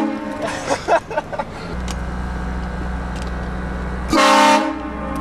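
Car-mounted train horn blasting: one blast cuts off just after the start, and a second blast of about half a second comes about four seconds in. Between them come a few short knocks, and from about two seconds in a car engine runs steadily underneath.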